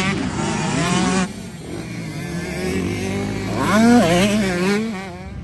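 Motocross bike engines revving hard and changing pitch with the throttle. There is a sudden break about a second in, then another bike's revs climb and waver to a loud peak about four seconds in before falling away.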